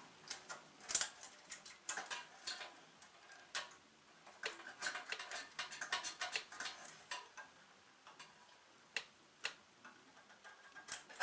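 Faint, irregular metallic clicks and light scrapes as a feeler gauge blade is worked in and out between the rocker arm and valve stem to check valve lash on a small generator engine. A few sharper ticks stand out about a second in and near the nine-second mark.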